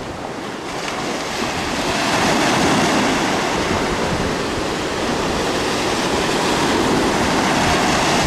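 Sea surf breaking and washing up over the sand in a steady rush, getting louder about two seconds in.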